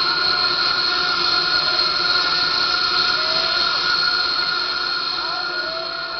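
Psytrance played over a festival sound system in a passage without a beat: a sustained hissing synth wash with several steady held high tones, slowly fading. A few short gliding tones sound over it in the second half.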